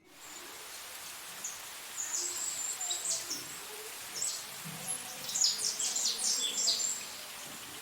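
Small birds chirping in short bursts of high calls, thickest a couple of seconds in and again past the middle, over a steady background hiss.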